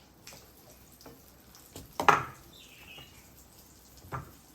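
Potato patty mixture being spooned into a frying pan of hot lard: a sharp knock of the spoon against the pan about two seconds in and a softer one near the end, over a faint sizzle.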